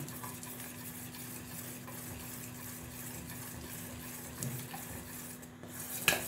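A spoon stirring milk thickened with arrowroot in a pan, kept moving without a pause so that lumps don't form: a faint steady scraping hiss over a low steady hum, with one sharp clink of the spoon against the pan near the end.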